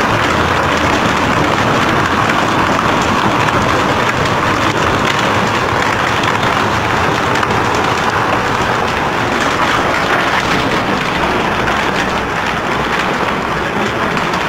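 Heavy hail falling with rain: a loud, steady, dense patter of stones and drops striking the ground and running water.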